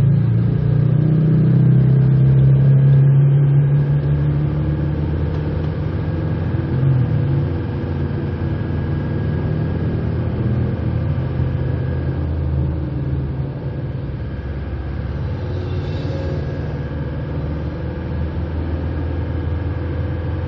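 A car driving in town traffic: steady engine and road rumble, heaviest during the first few seconds, then even.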